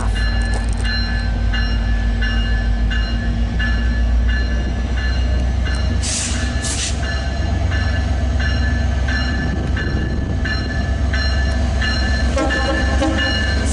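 Diesel passenger locomotive running at the platform with a steady low rumble while its bell rings, about one strike every two-thirds of a second. Two short bursts of air hiss come about six seconds in.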